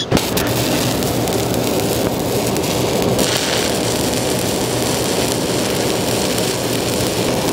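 Two stick-welding (SMAW) arcs burning at once on opposite sides of a 1-inch steel double V-groove plate, laying fill passes with 7018 electrodes. A sharp arc strike right at the start, then a steady, even crackle.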